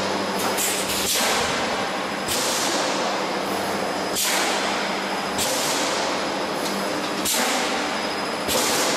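Seam welding line for transformer radiator panels running, with a hissing burst every one to two seconds, each starting sharply and fading, over a steady low hum.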